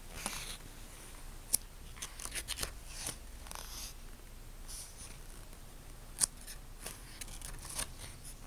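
Pages of a book being handled and turned: a string of short, crisp paper rustles and clicks at irregular intervals.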